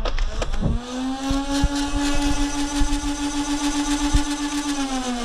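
Motorized Nerf dart blaster firing on full auto: its flywheel motors spin up about a second in to a steady whine, with a fast run of clicks as darts are pushed through. The whine winds down near the end.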